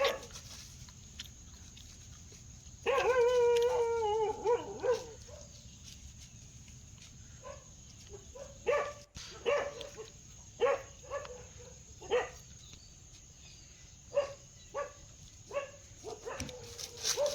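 Dog barking: a drawn-out, wavering call about three seconds in, then a dozen or so short single barks spaced irregularly over the rest.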